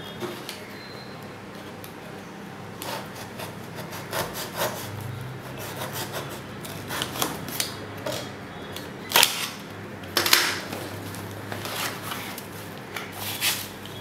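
A box and its packaging being opened and handled by hand: intermittent rubbing, scraping and rustling with occasional clicks, the loudest scrapes about nine and ten seconds in.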